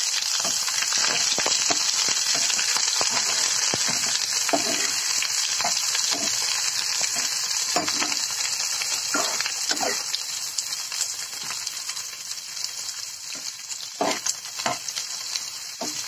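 Roughly cut onions sizzling in hot oil in a nonstick frying pan, stirred now and then with a metal spatula that scrapes across the pan. The sizzle eases slightly in the second half.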